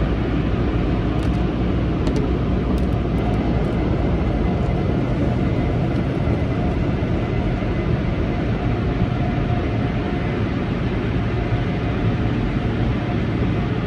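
Automatic car wash heard from inside the car: a steady, loud rushing noise of the wash equipment, water spray and air blowers, with no let-up.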